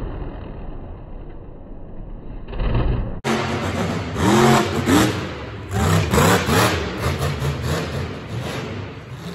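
Monster truck engine noise, then after a sudden cut about three seconds in, a monster truck's engine revving hard, its pitch rising and falling several times.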